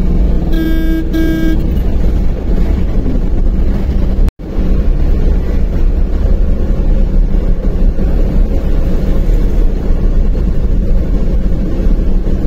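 Tata Intra V50 pickup truck driving at highway speed, heard from inside the cab: a steady engine and road rumble. Two short horn toots come about a second in, and the sound cuts out for an instant a little after four seconds.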